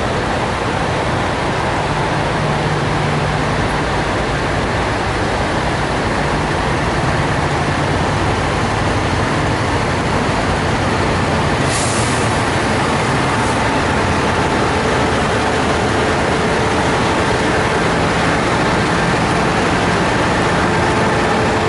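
Diesel engines of semi trucks idling at a truck-stop fuel island, a steady drone with a low hum. A short hiss of air about twelve seconds in.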